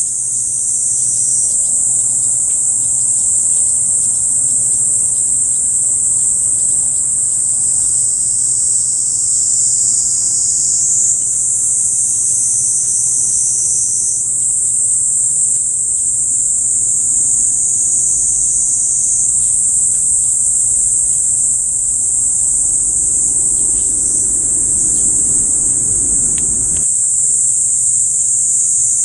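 Dense insect chorus shrilling in a steady, high-pitched drone. A faint low rumble underneath stops suddenly near the end.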